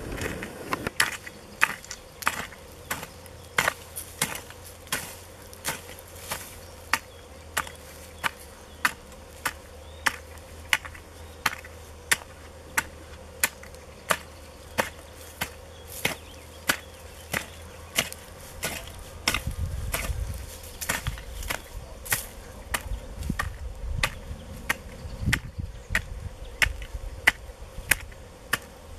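Flat-cutter hoe (Malý Sokol ploskořez) chopping into soil and weeds in short, even strokes, about two a second. A low rumble comes in for a few seconds partway through.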